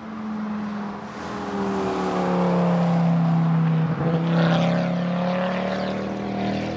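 Ford Focus ST's turbocharged 2.5-litre five-cylinder engine pulling hard as the car drives past and away. It grows louder, breaks briefly about four seconds in, then fades.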